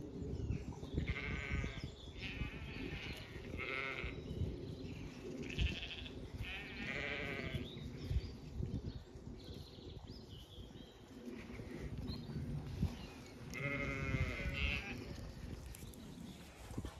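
Zwartbles sheep bleating: about six wavering calls, most in the first eight seconds and one more near the end.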